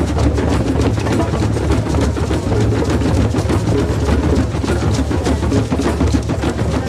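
A group of hand drums played together in a drum circle, a dense, fast, continuous beat with a heavy low thump.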